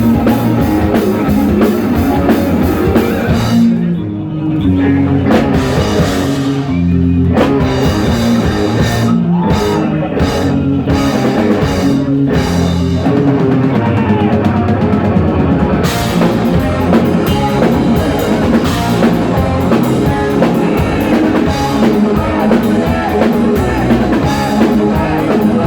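Heavy metal band playing live, with distorted electric guitars, bass and a drum kit. About four seconds in the cymbals drop out for a stop-start break of short band hits, and the full band with cymbals comes back in about sixteen seconds in.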